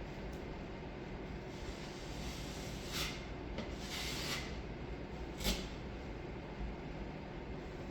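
Drywall taping knife scraping joint compound across a taped patch: a few short scraping strokes, a longer one about four seconds in, over a steady low background hum.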